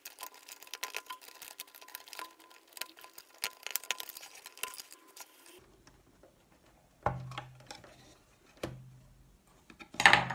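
Small clicks and clinks of screws and plastic parts as a car instrument cluster's circuit board and housing are handled, then, after a short lull, a few sharper knocks of the plastic housing, the loudest near the end.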